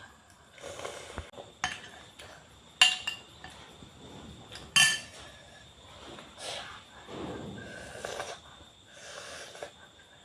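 Kitchen utensils knocking and scraping against dishes, with two sharp ringing clinks, the second about two seconds after the first.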